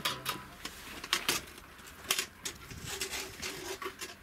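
Steel trowel scraping and knocking against a bucket as mortar is scooped into it: a series of irregular sharp scrapes and clicks.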